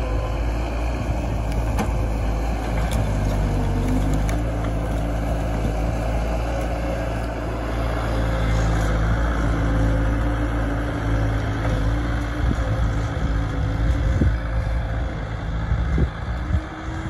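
Bobcat S160 skid-steer loader's diesel engine running steadily as it drives, with a few knocks and clanks near the end.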